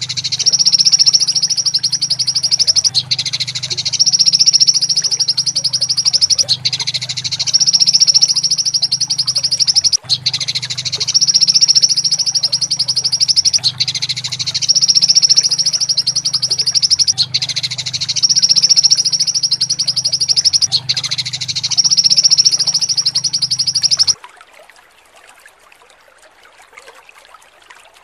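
A songbird's rapid, harsh rattling trill, repeated in phrases of about three seconds with short breaks between them, over a low steady hum. The song stops about 24 seconds in, leaving only faint hiss.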